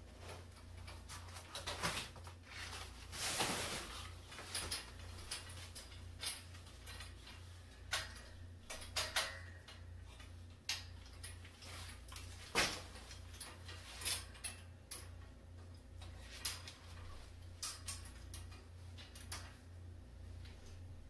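Irregular clicks, clanks and light rattles of an Origami folding metal wire shelf being handled, unfolded and its shelves snapped into place, with a short rustle a few seconds in and the sharpest click a little past the middle. A low steady hum runs underneath.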